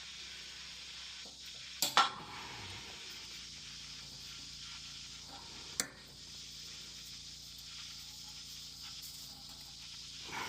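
Metal jerry can parts being handled as a new gasket is fitted: two sharp clicks about two seconds in and another near six seconds, over a steady faint hiss.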